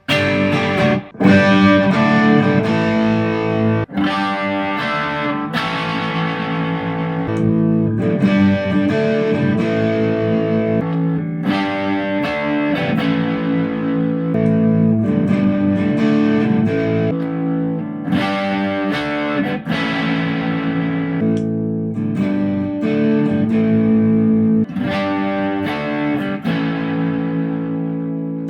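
ESP LTD EC-256 electric guitar played through an amplifier: chords and notes struck every second or few and left to ring, with a few brief breaks.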